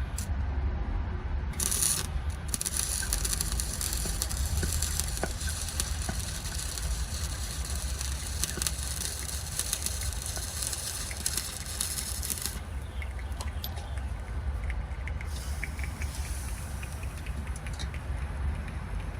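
Small ATV engine running with a steady low rumble, joined by a loud hiss from about two seconds in until about twelve seconds in, with scattered light clicks.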